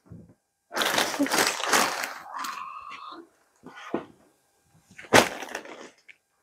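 Fabric and plastic bags rustling and crinkling as folded garments are handled on a table, with a short squeak a couple of seconds in. About five seconds in comes a sharp thump as a folded garment bundle is set down on the table.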